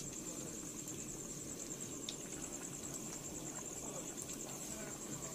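Chicken curry boiling in a large iron kadai over a gas burner, with a steady, evenly pulsing high-pitched insect trill above it.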